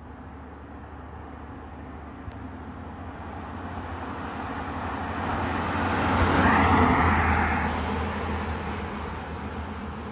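Advanced life support response truck driving past. Its engine and tyre noise swells to a peak about six seconds in, then fades as it moves away.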